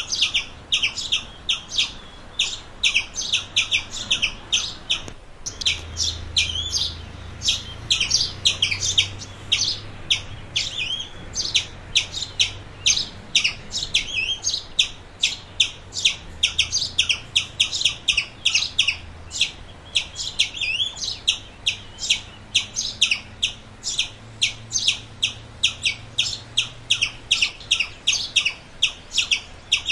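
Squirrel chirping: a quick, steady run of short, sharp, high chirps, about three a second.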